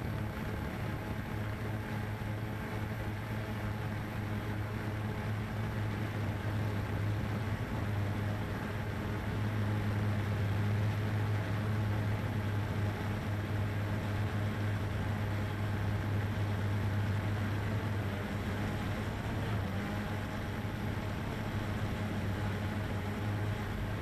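Cheerson CX-20 quadcopter's motors and propellers droning steadily in flight, a low hum that swells slightly in the middle and eases again.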